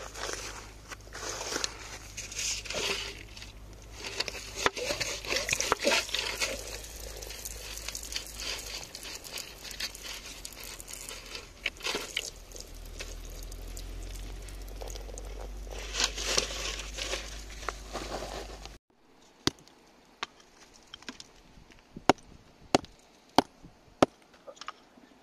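Gritty scraping and crackling of soil and stones being dug out and shifted by gloved hands, with a steadier hiss of a water jet spraying the crystal-lined rock. About three-quarters in the sound cuts off and a handful of sharp clicks follow, a few per second.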